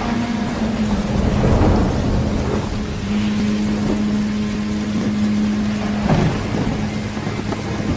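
Rain-and-thunder sound effect played over the stage sound system: a steady hiss of rain with low rolling thunder, swelling louder about six seconds in, under a steady low hum.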